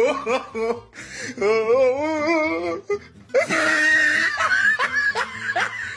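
A person's voice in a wavering, wobbling wail, then wheezy laughter in quick repeated bursts.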